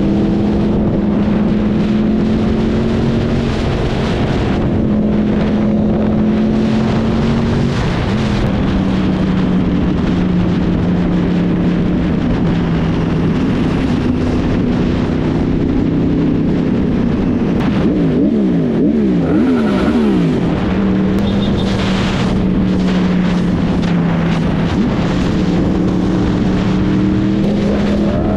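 Yamaha sport bike engine running at highway speed, heard from the rider's seat over road and wind noise. Its note holds steady for long stretches, steps down and back up with throttle changes, and wavers rapidly up and down for a couple of seconds past the middle.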